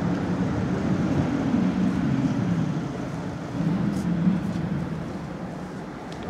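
Street traffic rumble, a vehicle engine running close by, which eases off toward the end. There is a brief click about four seconds in.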